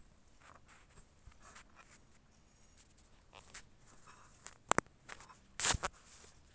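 Faint scratching of a felt-tip textile marker stroking over printed cloth, in short strokes. Two sharp clicks in quick succession about two-thirds of the way in, then a louder brief rustle a second later.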